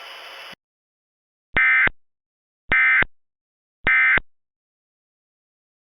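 Emergency Alert System end-of-message tones: three identical short bursts of SAME digital data squawk, about a second apart, closing the alert. A faint hiss cuts off about half a second in.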